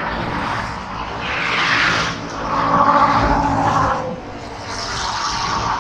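Road traffic passing at speed, vehicles swelling and fading one after another. About two and a half seconds in, a louder, steadier pitched sound from a passing vehicle lasts about a second and a half.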